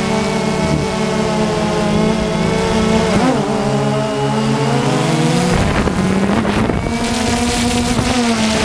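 DJI Phantom 2 quadcopter's motors and propellers buzzing in flight. It is a chord of several steady pitches that slide together as the motor speeds change, with a dip and rise about three seconds in and another shift a couple of seconds later.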